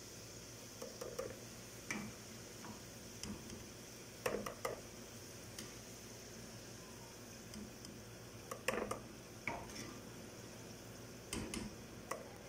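Slotted metal spatula clinking and scraping against a frying pan and the rim of a mesh strainer as fried onion slices are lifted out of the oil, over a faint steady sizzle of hot oil. The knocks come in scattered clusters, loudest about four and nine seconds in.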